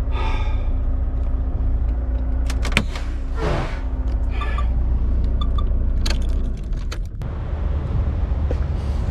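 Volvo VNL semi truck's diesel engine idling steadily, with clicks, knocks and jingling from the cab as the driver moves about and climbs out.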